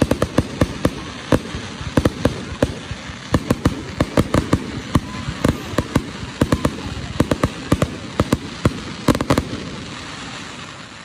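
Fireworks going off in quick succession: a dense, irregular run of sharp bangs and crackles, several a second, over a steady hiss, dying down near the end.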